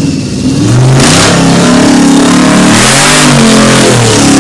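Modified off-road 4x4 competition truck's engine revving hard, its pitch rising and falling several times under heavy noise.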